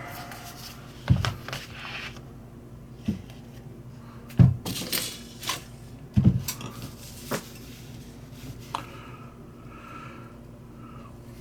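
Small metal tools and lighter parts being handled and set down on a hard surface: about six sharp, separate clinks and knocks at irregular intervals.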